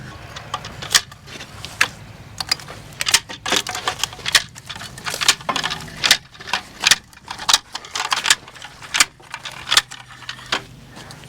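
Mingo Marker firewood marker being rolled along logs: irregular sharp clicks and rattles from its wheel and paint-can trigger as it marks the cut lengths.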